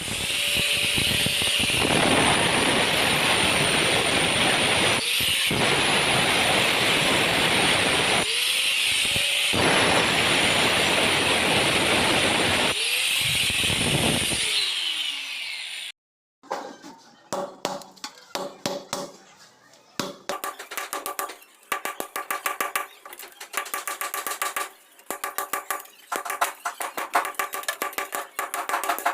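A power tool runs steadily for about fourteen seconds, stopping and spinning back up three times, then cuts off. After a short gap come quick, irregular sharp strikes that ring.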